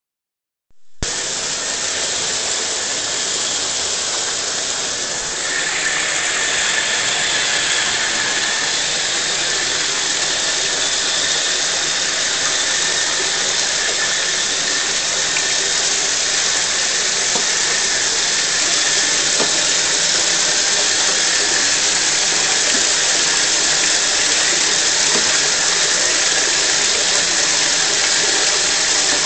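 Bathtub tap running steadily, water pouring into the tub, starting about a second in; a thin steady whistling tone joins about five seconds in.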